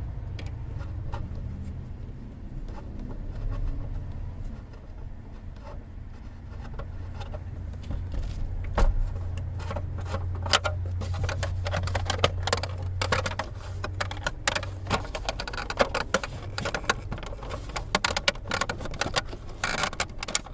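Plastic steering-column cover being pried and worked loose by hand, giving irregular clicks and rattles that grow busier about halfway through, over a steady low hum.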